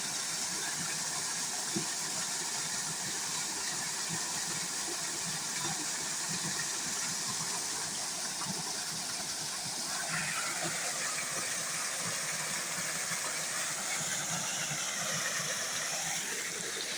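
Steady rush of water pouring over an old sawmill dam as a small waterfall: an even, hissing noise.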